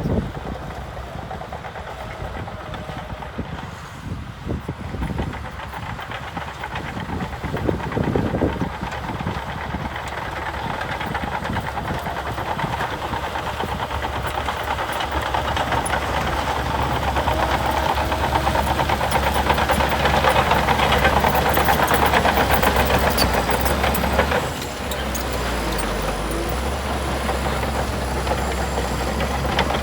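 Diesel engine of heavy earthmoving machinery running under load, with irregular knocks in the first several seconds; the engine sound builds through the middle and drops back suddenly about 24 seconds in.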